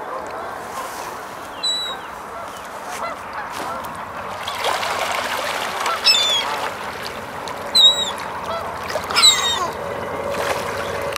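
Waterfowl calling on a lake: Canada geese honking and ducks quacking. Several short, sharp, high calls stand out about 2, 6, 8 and 9 seconds in, the loudest near 8 and 9 seconds.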